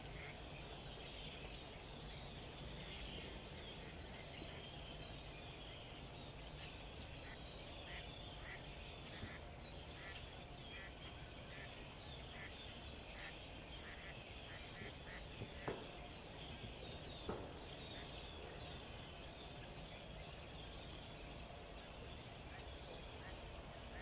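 Ducks calling over a marsh, with wind rumbling on the microphone; about two-thirds of the way through, two distant shotgun shots about a second and a half apart.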